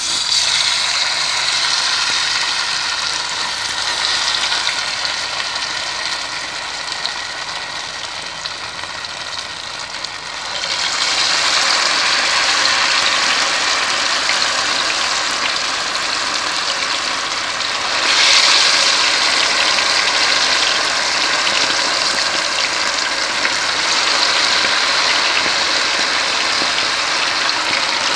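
Marinated, besan-coated chicken pieces deep-frying in hot ghee: a loud, steady sizzle that grows louder about ten seconds in and again about eighteen seconds in as more pieces are lowered into the oil.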